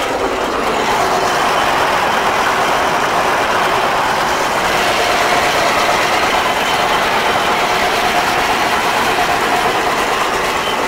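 Fortschritt E303 self-propelled mower running steadily while mowing tall grass, its engine and cutting header heard together from the cab as a loud, even machine noise.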